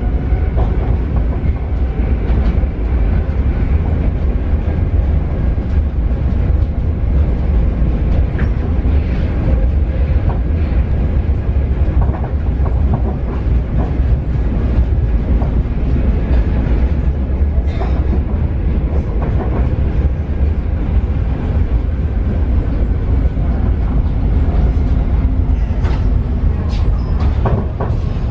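Paris Métro Line 7bis train running along the line: a loud, steady rumble from the wheels on the rails, with scattered clicks and clacks over the top.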